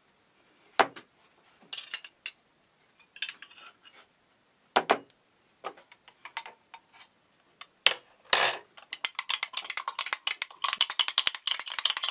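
Teaspoon and small drinking glass: scattered knocks and clinks as they are handled, then from about nine seconds in a rapid, steady clinking of the spoon stirring inside the glass to mix in a teaspoon of yeast.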